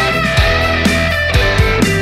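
Background rock music with guitar and a steady drum beat, about two beats a second.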